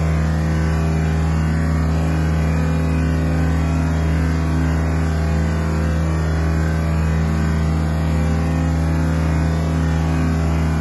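Asphalt paver's diesel engine running at a steady speed: a constant low drone that does not change through the whole stretch.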